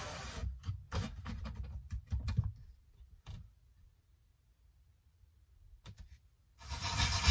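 A pleated skylight blind being pushed up along its side tracks by hand gives a run of clicks and knocks in the first couple of seconds, then a few faint ticks. Near the end comes about a second of louder, even hiss-like noise.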